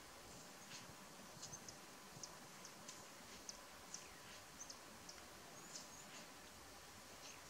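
Near silence: quiet outdoor ambience with faint, scattered high chirps and ticks, a few each second at irregular spacing.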